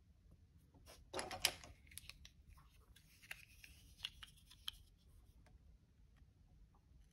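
Paper being handled and a sticker trimmed with a craft knife: a loud rustle and knock about a second in, then scattered light clicks and scratches as the blade is brought to the paper and cuts.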